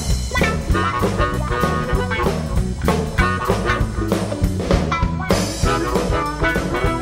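Band playing an instrumental stretch of a song: electric guitar over bass guitar and a drum kit keeping a steady beat.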